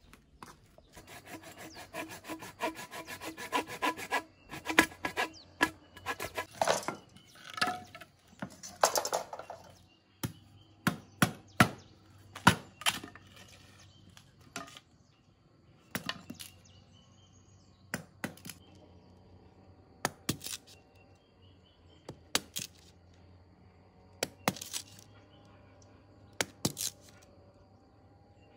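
Green bamboo being worked by hand: a few seconds of rapid sawing strokes, then sharp cracks and knocks about every two seconds as a broad cleaver splits and shaves the culms into strips.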